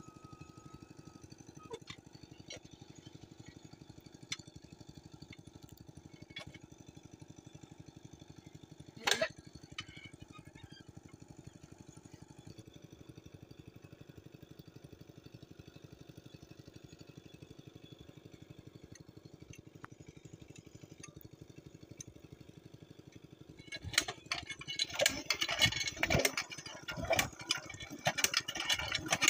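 Faint steady engine hum with a fast pulse and occasional small clicks. About 24 seconds in, loud irregular metallic clanking and knocking begins as the diesel engine and the iron hand pump beside it are worked.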